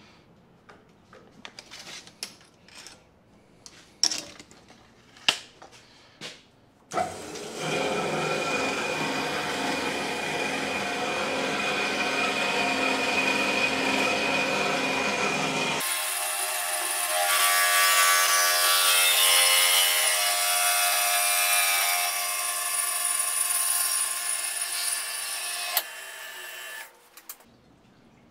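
Several clicks and knocks while the work is clamped in an MEP metal-cutting band saw. About seven seconds in, the saw starts and cuts through a steel tube. Its sound turns higher and thinner about halfway through, then stops shortly before the end.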